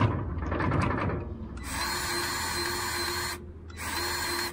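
Battery-powered grease gun motor running steadily, pumping grease into a fitting on a tractor PTO shaft. It runs for nearly two seconds, stops briefly, then runs again and cuts off, after a little clatter of handling at the start.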